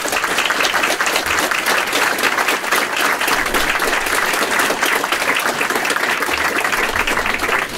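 Audience applauding after a lecture, many hands clapping steadily.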